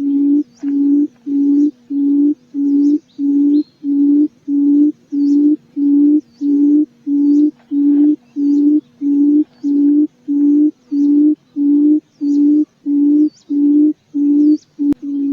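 Field quail (puyuh ladang) call used as a lure: a low hooting note repeated steadily, a little under two a second, with faint thin chirps high above it.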